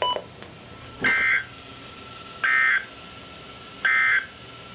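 Three short, buzzy digital data bursts from NOAA Weather Radio receivers, each about a third of a second long and evenly spaced about a second and a half apart. They are the EAS/SAME end-of-message codes, which mark the close of the broadcast watch alert.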